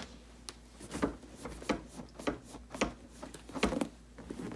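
Irregular clicks and light knocks from the metal frame of a classic Volkswagen Beetle front seat being handled as the backrest is fitted onto the seat bottom and the seat is shifted about.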